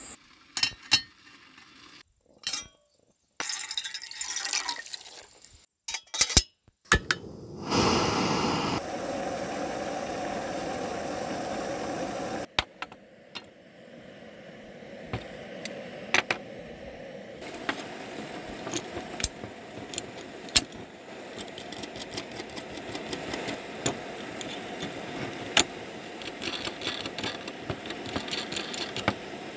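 Metal parts of a compact gas camping stove and a wood-and-steel-rod stand being handled and fitted together: scattered clicks and clinks. A loud steady rushing noise comes in about a quarter of the way through and drops away a few seconds later, leaving a fainter steady hiss under the clicks.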